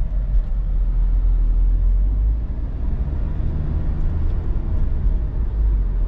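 Steady low rumble of road and engine noise heard from inside a moving van.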